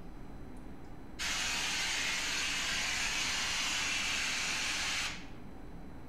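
Steady noise hiss from a signal-generator app played through a mobile phone's speaker. It switches on about a second in and cuts off sharply about five seconds in.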